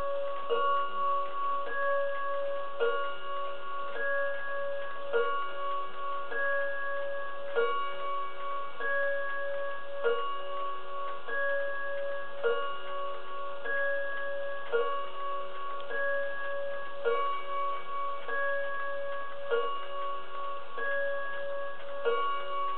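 Pendulum wall clock striking twelve with a two-note bim-bam chime, each ringing pair following the last about every two and a half seconds over the clock's ticking.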